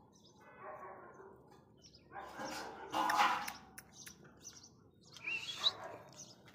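Quiet outdoor ambience with scattered short high chirps, and a brief louder rush of noise between about two and three and a half seconds in.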